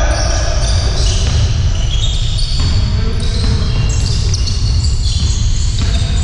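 Basketball game sounds in a gym: the ball being dribbled and sneakers squeaking on the court floor in many short high squeaks, echoing in the hall over a steady low rumble.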